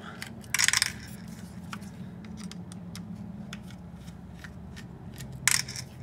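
Small metal clicks and clinks as a screwdriver backs out the small screws of a laptop hard drive caddy, with two louder clattering bursts, one about half a second in and one near the end, over a steady low hum.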